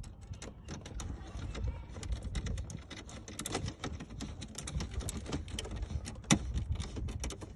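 Plastic dashboard and instrument-cluster parts being handled and fitted: a dense run of small clicks and knocks, with one sharper knock about six seconds in.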